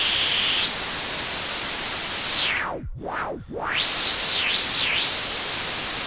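Synthesized wind from Omnisphere: a noise hiss through a resonant filter whose cutoff is randomly modulated at full depth. The whistling peak jumps up about a second in, dives down and climbs back twice near the middle, then wavers quickly up and down.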